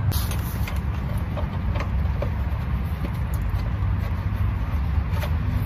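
Steady low hum with a few faint, short clicks scattered through it.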